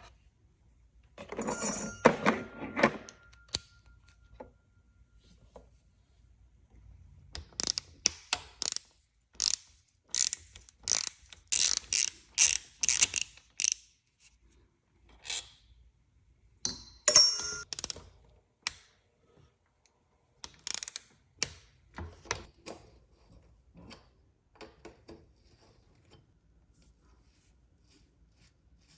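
Metallic handling sounds from working on a bicycle: a clank about two seconds in that rings briefly, then irregular clusters of sharp clicks and knocks.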